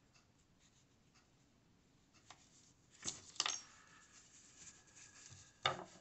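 A few sharp clicks and taps of small hard objects handled on a tabletop: two close together about three seconds in and one louder near the end, with fainter ticks between.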